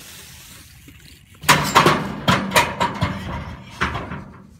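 BMX bike crashing on a steel guardrail: starting about a second and a half in, a burst of loud metal clanks and scrapes, about half a dozen sharp hits over two and a half seconds as the rider comes off and the bike falls to the ground.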